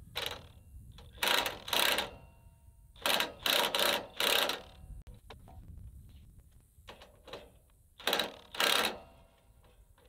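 Cordless drill driving a sawmill trailer's stabilizer jack in short bursts, about nine in all, raising the low side of the trailer to bring it level.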